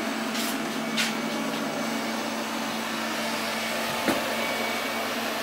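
Aonus S8 robot vacuum running, its suction motor a steady hum. Two short hisses come within the first second, and a brief knock about four seconds in.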